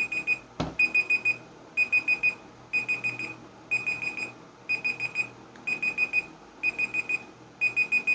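Electronic timer alarm beeping in a repeating pattern of four quick high beeps about once a second, signalling that the two-minute round of the eating challenge is up.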